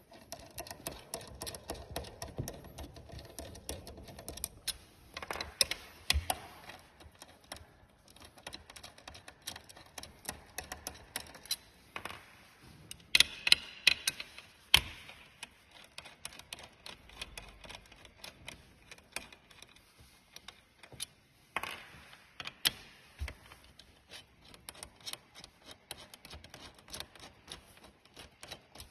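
Irregular small clicks, ticks and taps of hand tools and metal pedal parts being handled during work on a sim-racing brake pedal, with a few louder knocks scattered through.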